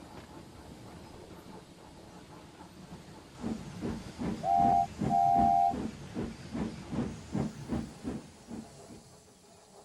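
Steam locomotive hissing steam, then starting to chuff, about three beats a second, the chuffs fading away. Near the start of the chuffing its whistle gives a short toot and then a longer one.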